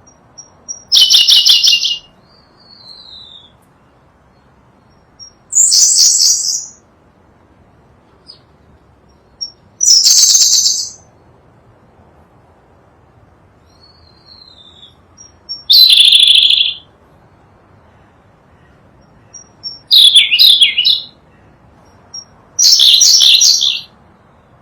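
Sunda blue robin singing: six short, high-pitched song phrases of about a second each, spaced roughly four seconds apart, each led by a couple of brief thin notes.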